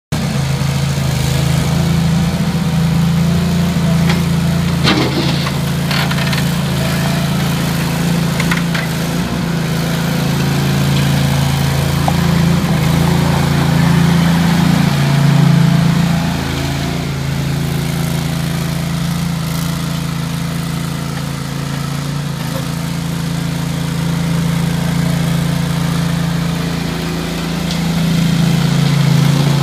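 Ramrod 750A mini skid loader's engine running steadily while the loader is driven and its bucket worked, with a few short knocks about five, six and eight seconds in. The engine sound sags through the middle and picks up again near the end.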